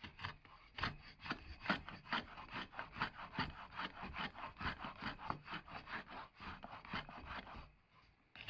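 Wooden router plane with a hand-forged blade shaving the bottom of a groove in a board, pushed in quick, short strokes, about four scraping strokes a second, which stop near the end.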